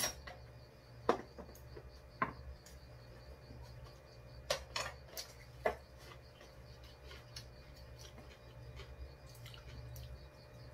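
Chopsticks clicking and tapping against rice bowls and plastic side-dish containers while eating, about seven sharp separate clicks in the first six seconds, then fewer, over a steady low hum.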